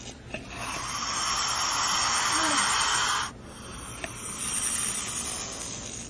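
Snake hissing: a long, loud hiss that cuts off sharply a little over three seconds in, followed by a quieter hiss.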